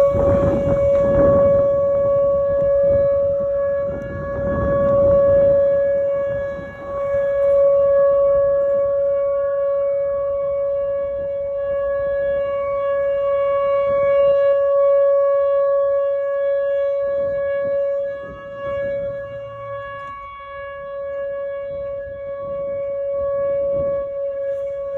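Outdoor tornado warning siren sounding a loud, steady tone, with a fainter wailing tone that rises and falls every few seconds. There are bursts of low rumbling noise near the start and about four seconds in.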